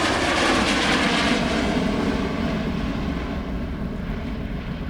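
Jet aircraft flying past at speed: a steady rushing engine noise that swells to its loudest about a second in, then slowly fades.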